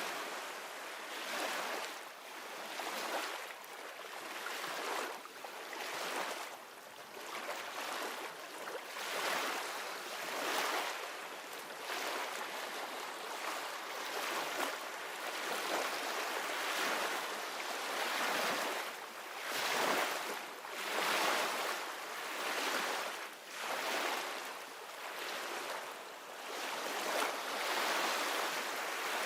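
Ocean surf washing ashore: a steady hiss of waves that swells and eases every second or two.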